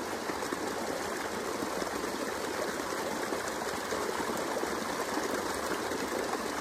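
Creek water rushing steadily down small rock cascades.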